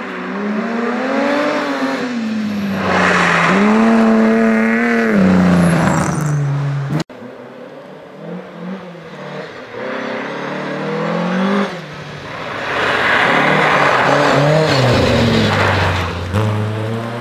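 Historic rally cars at full throttle on a snowy stage, one after another: engine revs climbing and dropping sharply as the drivers shift and lift, loudest as each car passes close. The first car's sound cuts off suddenly about seven seconds in, and a second car approaches and passes.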